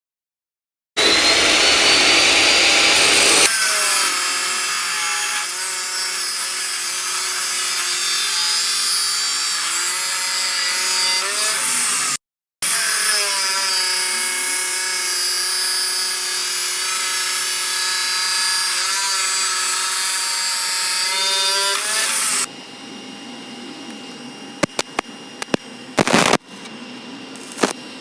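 Homemade belt grinder powered by an angle grinder, running with a steady whine and the rasp of the abrasive belt, harshest in the first couple of seconds. It breaks off for a moment about twelve seconds in, and after about 22 seconds the machine stops, leaving a quieter hiss with a few sharp clicks.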